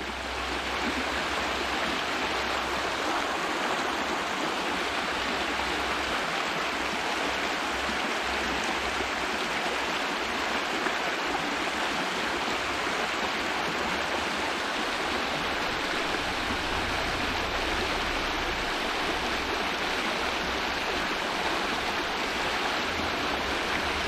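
Shallow creek running over a rocky riffle: a steady rush of flowing water.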